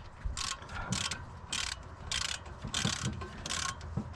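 Hand ratchet wrench being worked back and forth on an exhaust manifold bolt, its pawl clicking in short bursts about every half-second.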